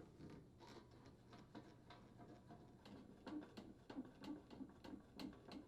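Faint clicks and light scraping of a Phillips screwdriver turning screws out of a dishwasher's toe kick and access panels, coming about two or three times a second in the second half.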